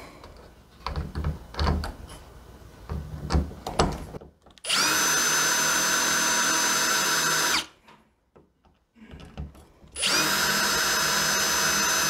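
RIDGID cordless drill driving a doorknob's mounting bolts: two steady runs of about three seconds each, one about halfway in and one near the end, with a few soft knocks of handling before the first.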